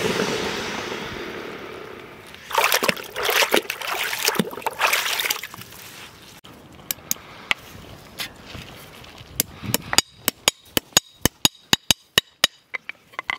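Hot steel horseshoe quenched in a bucket of water: a loud hiss that fades over about two seconds, then bursts of sizzling and bubbling as it is dunked again. Near the end comes a quick run of sharp metal taps, typical of a hammer tapping a horseshoe nail into the shoe on the hoof.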